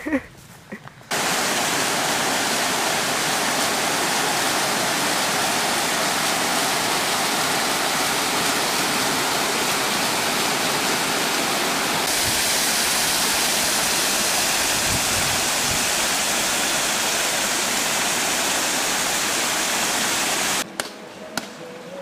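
Small waterfall pouring over a rock ledge onto stones: a steady rush of falling water that starts about a second in and turns slightly brighter about halfway through.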